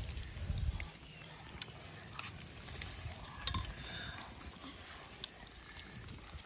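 Scattered small clicks and taps of snail shells being handled and picked at with thin sticks, with one sharper click about three and a half seconds in. A low rumble fills the first second.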